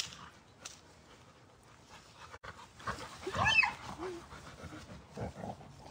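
A puppy playing with an adult Rottweiler gives a short, high, whining yelp about three and a half seconds in, followed by a brief lower whine, with dog panting around it.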